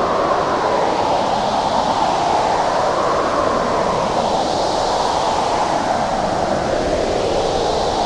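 Howling blizzard wind, a steady rush whose pitch slowly rises and falls in long swells.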